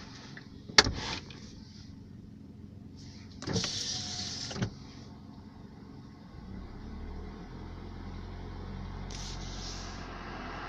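A sharp click about a second in, then a short whir with a click at each end around four seconds in. About six seconds in a car engine's low running sound comes in and holds steady, with no clear knock heard yet.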